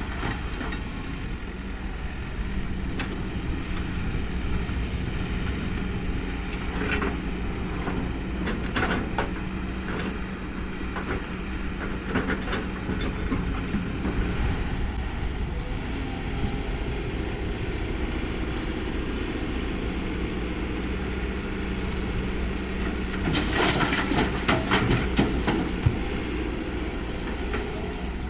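Kobelco SK200 excavator's diesel engine running steadily under load while digging and loading soil, with scattered metallic clanks and knocks, a loud cluster of them about three-quarters of the way through.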